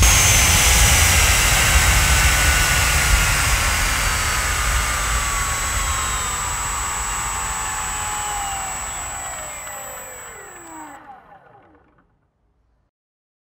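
A 100 mm 3D-printed electric ducted fan with an 18-blade fan, driven by an NTM 1400kv 35 mm brushless motor, spinning down after the power is cut. It makes a whine that falls steadily in pitch and fades. A high steady tone cuts off about eleven seconds in, and the fan goes silent about a second later.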